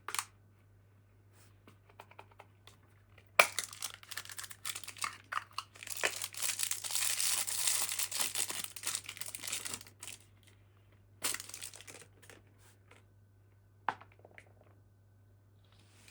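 Toy packaging being torn open and crinkled by hand. It starts with a sharp rip a few seconds in, builds into a long stretch of dense crackling, then a shorter crinkle and a single click near the end.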